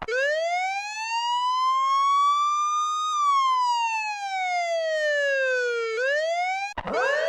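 A siren wailing in one slow cycle: the pitch climbs for about three seconds, falls for about three, and starts to rise again. It then cuts off abruptly, and a different, harsher siren starts rising near the end.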